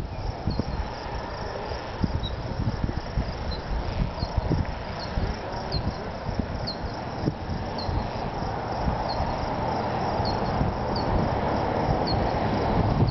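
Storm wind buffeting the microphone, an irregular low rumble with a steady hiss, growing slightly louder near the end. Over it, an insect gives faint, short, high chirps about once a second.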